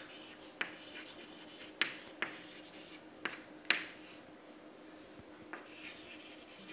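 Chalk writing on a chalkboard: a run of sharp taps and short scratchy strokes as words are chalked.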